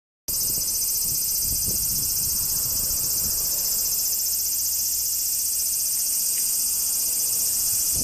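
Cicada singing close by: a steady, dense, high-pitched buzz that cuts in abruptly just after the start and holds at an even level.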